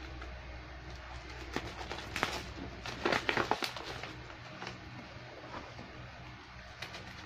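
Bubble wrap being pulled and torn off a package, with rustling plastic and sharper crinkles, loudest about three seconds in. A low steady hum underneath fades out partway through.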